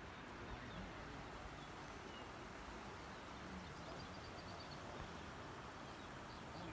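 Steady, faint rush of floodwater flowing into a lake, with a few faint bird chirps around the middle.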